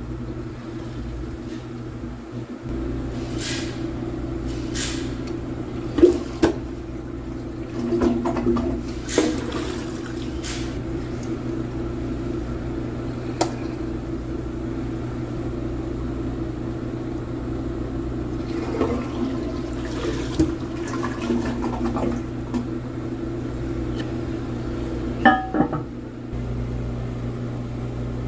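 Toilet flushing and its tank refilling, a steady rush and hum of water, with several sharp knocks and clinks from the tank and handle along the way.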